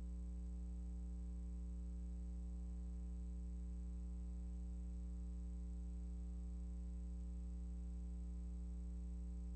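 Steady electrical hum with a faint high-pitched whine and nothing else: the noise floor of a transfer of a silent film.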